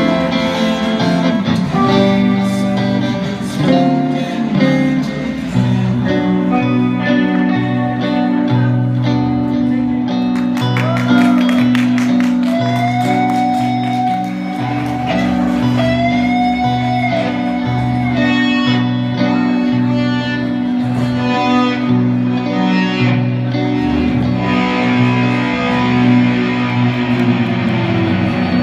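Instrumental guitar music: a picked guitar line over a steady pulsing bass, with a sliding lead melody partway through.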